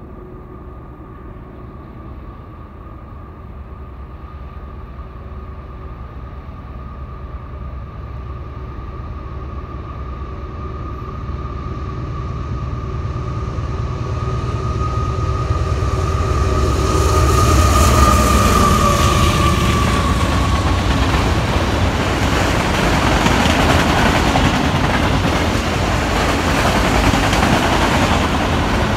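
A Union Pacific GE AC44CW-CTE diesel-electric locomotive working hard up a grade approaches, its engine rumble and a steady high whine growing louder. It passes about 18 seconds in, the whine dropping slightly in pitch. The rush and clatter of a long autorack train's wheels rolling past follows.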